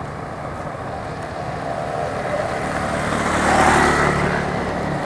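Road traffic: a motor vehicle's engine runs with a steady low hum, and the rush of a passing vehicle builds from about two seconds in to its loudest near four seconds.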